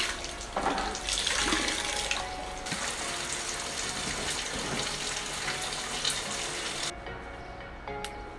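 Water splashing and running off wet dyed cotton cloth as it is squeezed and handled, a continuous splashy hiss that cuts off suddenly about seven seconds in.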